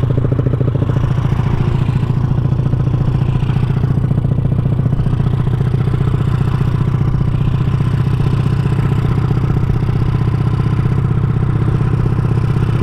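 Honda Supra underbone motorcycle's single-cylinder four-stroke engine, bored up to 200cc, running through a CJDW aftermarket exhaust while riding at a steady speed. The exhaust note is a loud, even, rapid pulsing with a strong low hum and no change in revs.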